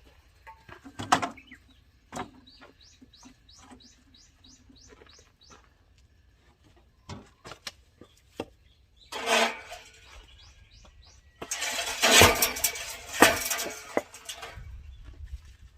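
Sharp wooden knocks from firewood being split and handled: one loud strike about a second in, and near the end a stretch of clattering with two more loud knocks. Between them a bird sings a quick series of short rising chirps.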